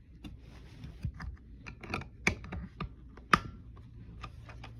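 Small plastic buttons on a talking alarm clock being pressed, a string of irregular clicks with one louder click about three and a half seconds in.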